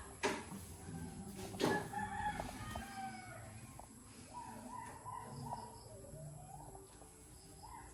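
Two sharp knocks about a second and a half apart, then roosters crowing in long drawn-out calls.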